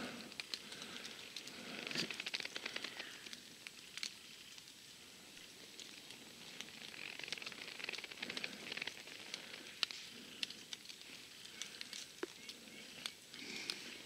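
Footsteps crunching through dry leaf litter and brush, with scattered crackles of twigs, coming in clusters of steps.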